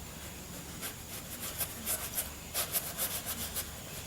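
Paintbrush scrubbing acrylic paint on in short, quick strokes: a series of scratchy rubs, about three or four a second, from about a second in, stopping shortly before the end.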